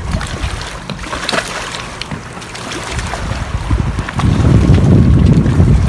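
Wind buffeting the microphone: a gusty low rumble that grows much louder about four seconds in.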